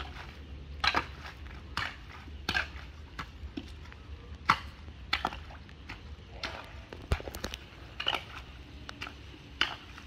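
Metal hoe blade scraping and chopping at wet mud and debris in a shallow muddy channel, a sharp scrape or clack about once a second at an uneven pace, over a steady low rumble.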